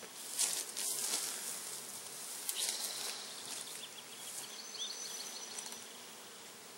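Many honeybees buzzing around a screened package of Italian bees, with a few brief handling noises in the first three seconds as the package is carried.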